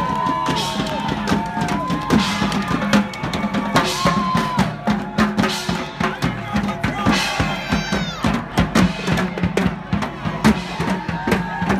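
Parade drum line playing a dense, driving beat on marching drums, with voices calling out over the drumming.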